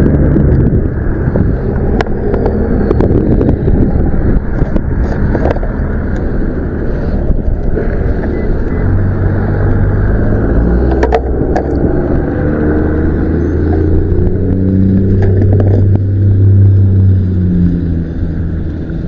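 A motor vehicle running close by over a steady low rumble. In the second half its engine note rises and falls. A few sharp clicks are heard along the way.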